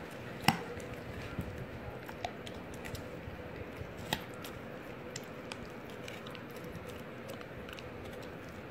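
Mother dog and puppy mouthing and licking each other: soft wet chewing and licking noises with scattered small clicks, the sharpest about half a second in and another about four seconds in. A faint steady hum runs underneath.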